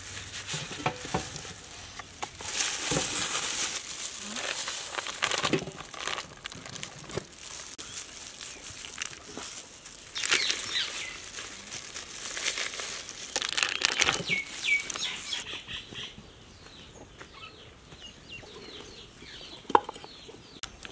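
Crinkling and rustling of a butter block's wrapper being peeled open by plastic-gloved hands, in several irregular bursts.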